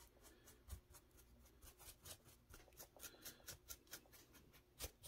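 Faint, quick, irregular scratching strokes of a stiff paintbrush dry-brushing paint over rough clay rock, with a single soft knock near the end.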